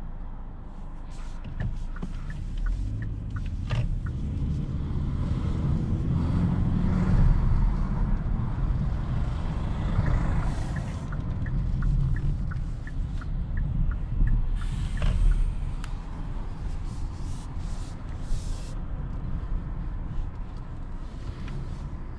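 Engine and road noise from a 2022 Kia K8 with a 2.5-litre four-cylinder petrol engine driving in town: a low rumble that swells and eases as the car speeds up and slows, with faint regular ticking in places.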